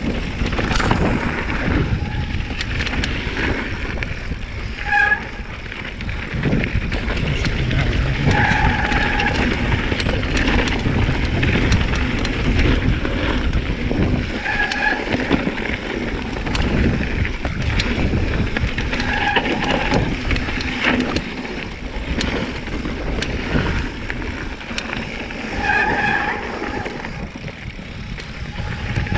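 Giant Trance 3 mountain bike descending a rough downhill trail: tyres skidding and crunching over loose dirt and rocks, the bike rattling and knocking over bumps, wind rushing on the microphone. Several short squeals from the disc brakes as the rider brakes.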